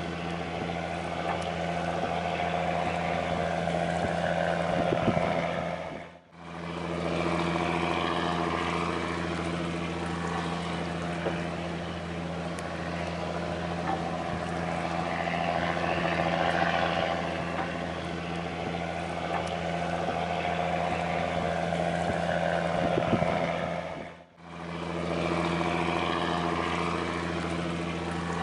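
Fishing boat's diesel engine running steadily under way at sea, a constant hum. The sound briefly fades out and back in twice, about six seconds in and a few seconds before the end.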